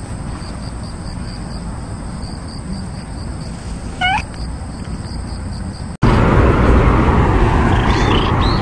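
A tabby-and-white street cat gives one short, rising meow about four seconds in, over a steady background with faint, evenly repeated high chirps. After a cut, loud close rustling of a hand stroking a cat right by the microphone, with a few faint high squeaky meows near the end.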